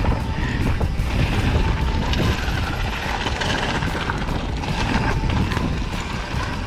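Mountain bike rolling down a loose gravel trail, its tyres crunching over stones, under heavy wind rumble on the microphone.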